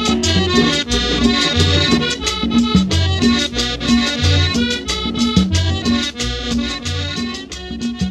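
Latin dance music with a steady beat, a bouncing bass line and busy percussion.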